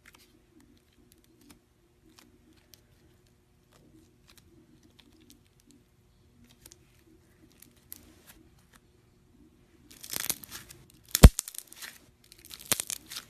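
Mirror putty slime being squeezed and stretched, its trapped air bubbles popping. At first there are only faint scattered clicks. About ten seconds in, loud crackling sets in, with one sharp pop a second later.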